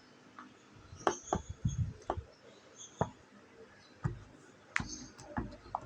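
Silicone pop-it fidget bubbles being pressed, about ten soft pops at irregular intervals.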